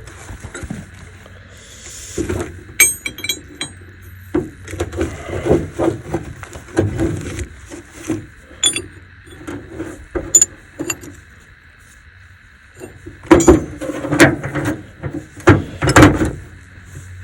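Metal hand tools and wrenches clinking and knocking against each other and against metal as they are handled, with a few short ringing clinks, over a faint steady hum.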